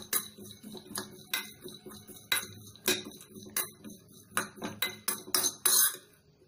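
A metal spoon stirring chopped almonds and cashews as they dry-roast in a small non-stick pan: irregular clinks and scrapes of spoon on pan about twice a second, with a longer scrape near the end.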